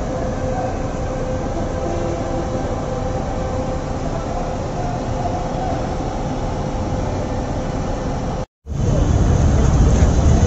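Steady hum and rumble of engines and traffic at a bus station. It breaks off for a moment about eight and a half seconds in, then returns louder and deeper.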